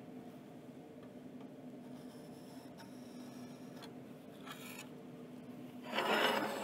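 Soapstone scratching along the edge of a combination square as layout lines are drawn on a steel plate: a few faint strokes, then a louder scrape of about half a second near the end.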